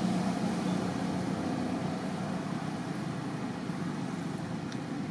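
Steady low background rumble with no distinct events, ending with two faint ticks.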